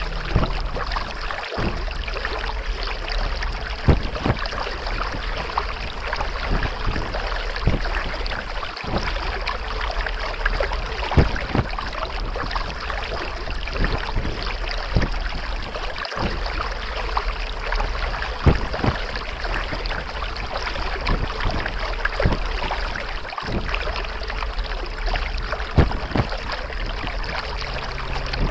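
Water lapping and splashing: a steady watery rush with frequent small splashes. The sound cuts out for an instant about every seven seconds.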